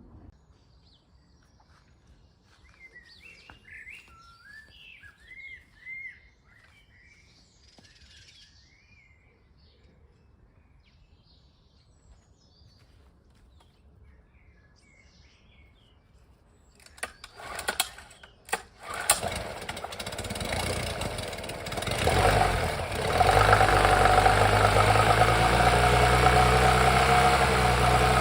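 Honda 8 hp four-stroke outboard engine starting after a few sharp cranking strokes, catching and picking up speed, then running steadily, with its freshly cleaned carburetor. Birds chirp faintly in the quiet beforehand.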